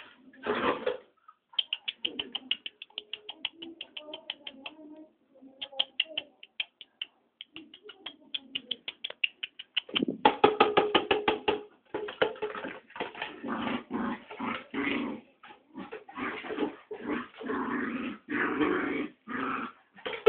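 A dog growling and vocalising excitedly. Rapid ticking pulses in the first half give way to loud, dense, continuous growls and grunts from about halfway through.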